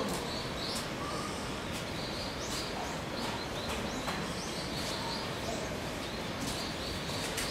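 Steady outdoor background noise with small birds chirping, a scattering of short high chirps at irregular intervals.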